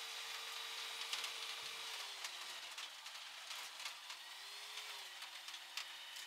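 Rotax 912 engine of an Aeroprakt A22 Foxbat running faintly at taxi power. Its steady note drops about two seconds in, rises briefly near five seconds and settles again. A hiss and scattered clicks sit beneath it.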